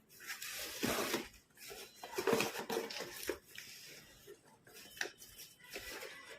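A box and its packaging being opened and handled: irregular rustling and scraping with a few light knocks, loudest about a second in and again around two to three seconds in.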